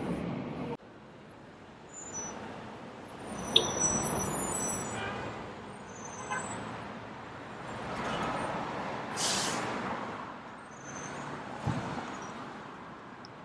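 Street traffic ambience: road vehicles passing in slow swells, with a few faint high chirps and a short hiss about nine seconds in. An earlier recording cuts off abruptly just under a second in.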